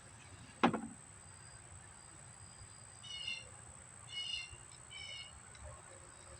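A single sharp knock about half a second in, then three short, high-pitched animal calls about a second apart, over a faint steady high whine.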